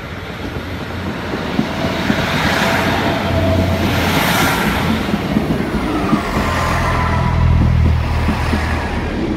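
Class 150 Sprinter diesel multiple unit rolling slowly past at close range, its underfloor diesel engines running with a low steady drone over the noise of wheels on the rails, growing louder as the cars go by.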